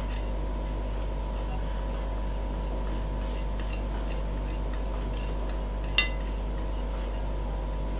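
Steady low electrical hum with scattered faint light ticks, and one sharp click about six seconds in.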